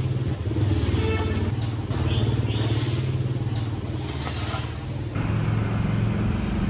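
An engine running steadily close by, its pitch stepping up a little about five seconds in.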